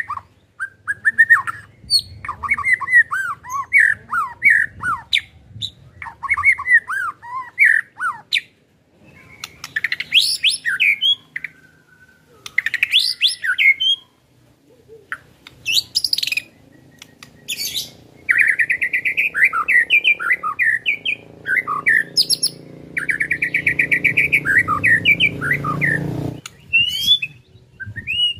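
White-rumped shama singing: varied whistled phrases separated by short pauses, with runs of fast rattling notes (ketrekan) in the second half.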